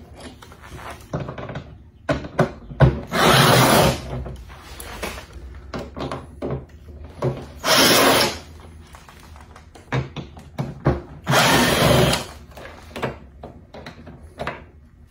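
Cordless drill-driver running in three short bursts of about a second each, backing bolts out of the mower's rear body panel. Small clicks and knocks of handling come between the runs.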